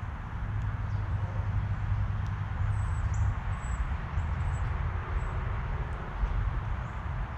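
Steady low outdoor rumble and hiss, with a few faint, short, high-pitched bird chirps in the first half and an occasional faint click.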